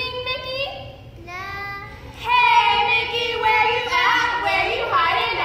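Women's voices singing in long held and sliding notes, getting louder about two seconds in.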